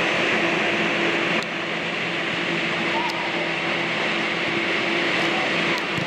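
Steady drone and hiss of the ventilation blowers that keep an air-supported sports dome inflated, with a steady low hum, and a few short knocks.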